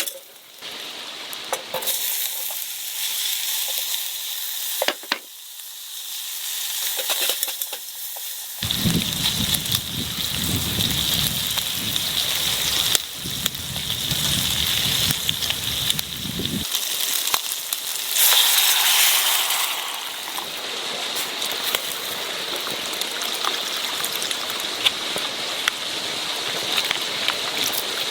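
Food sizzling in a frying pan over a campfire: a steady hiss with scattered small clicks and pops.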